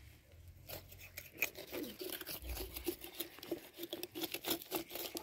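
Rapid crackling and snapping of a pig carcass's rib cage and backbone being broken and cut apart, bone and cartilage giving way under the hands and blade.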